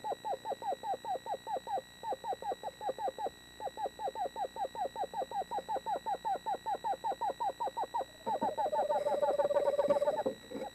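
Screech owl trilling: a long run of rapid, evenly spaced notes, about eight a second, each sliding slightly down, broken by two short pauses. In the last two seconds a smoother, steadier trill takes over before it stops.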